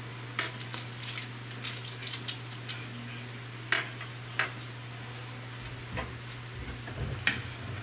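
A dozen or so sharp light clicks and taps of small hard objects on a wooden tabletop, irregularly spaced, a couple of them with a brief high ring, over a steady low hum.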